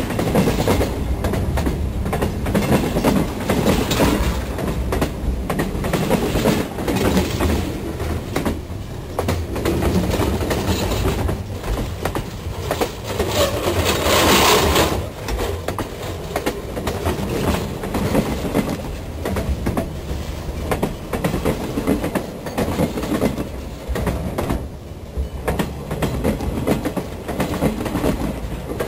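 Train cars rolling directly over a camera lying on the track: a loud, steady rumble of wheels on rail with constant clickety-clack. About halfway through there is a brief louder burst.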